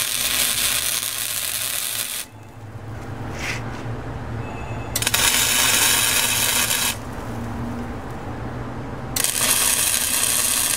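MIG welder tack-welding the steel posts of a truck rack: three bursts of arc crackle, each about two seconds long, with a low hum in the gaps between them.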